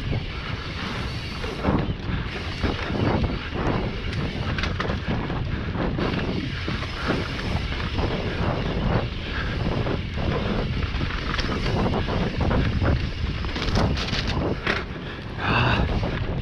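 Mountain bike descending a dirt trail at speed: wind rushing over the microphone, tyres running on dirt, and a constant clatter of knocks and rattles from the bike over the bumps. Near the end a brief high-pitched squeal.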